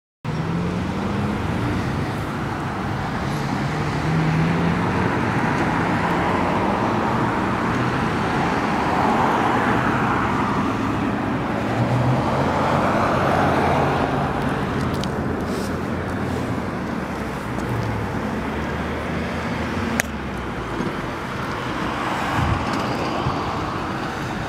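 Steady road traffic noise, heard while riding a bicycle alongside the road: the rush of passing cars swells and fades a couple of times, over a low engine drone.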